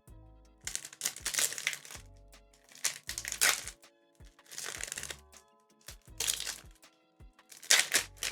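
Pokémon trading cards and their booster-pack wrapper being handled, with five short bursts of crinkling and rustling as cards are slid through by hand. Soft background music runs underneath.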